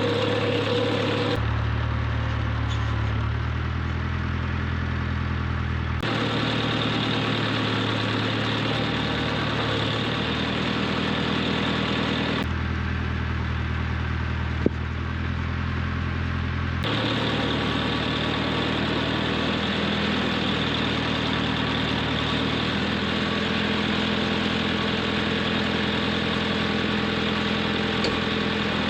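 Farm tractor engine running steadily, its note shifting abruptly several times. A single sharp click comes about halfway through.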